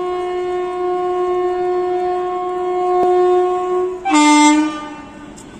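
Air horn of an approaching WAP7 electric locomotive, sounding as the express runs through the halt without stopping. It gives one long, steady blast that ends about four seconds in, followed at once by a short, louder blast at a lower pitch.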